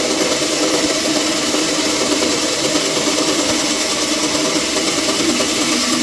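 Bandsaw running with its blade cutting through a small, thin piece of wood: a steady, even noise.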